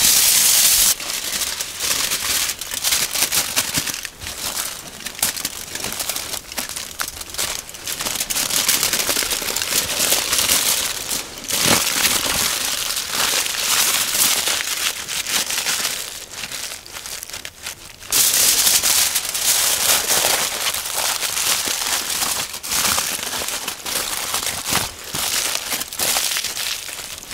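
Aluminium foil crinkling and crumpling as it is handled to cover the food, loudest near the start and again about two-thirds of the way through.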